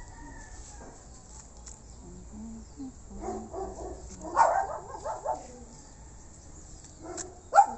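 Animal calls: a run of short calls starting about three seconds in and lasting a couple of seconds, then one sharp, louder call near the end.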